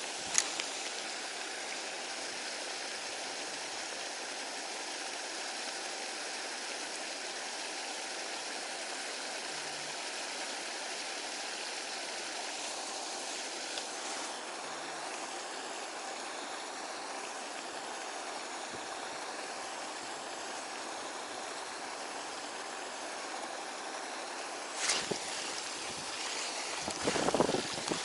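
Steady rushing of running water, an even hiss with little low rumble. A sharp click just after the start, and a few louder knocks and rustles near the end.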